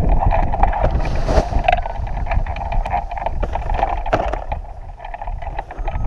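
Wind rumbling and buffeting on a microphone mounted on a hang glider, with scattered short clicks and knocks as the glider is walked backward on the ground.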